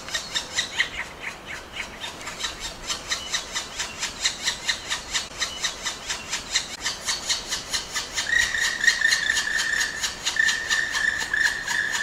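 Black woodpecker chiselling at its nest hole in a beech trunk: a steady run of sharp wooden taps, about four to five a second. From about two-thirds of the way through, a thin steady high tone joins, broken once.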